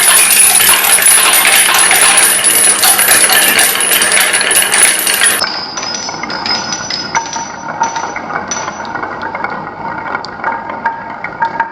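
Many marbles rolling and clattering down wooden marble-run tracks, a dense rattle of clicks. About halfway through it cuts abruptly to a quieter run, with fewer balls rolling and scattered clicks.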